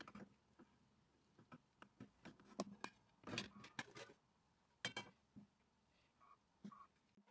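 Light scattered clicks and knocks of a nonstick frying pan, a plate and a silicone spatula being handled while a pan-baked cake is flipped, with a cluster of sharper knocks around the middle.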